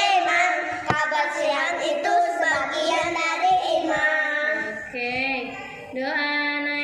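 Children chanting Quran recitation to a sung melody, the voice line rising, falling and holding notes. It dips briefly about five seconds in before a new held phrase begins.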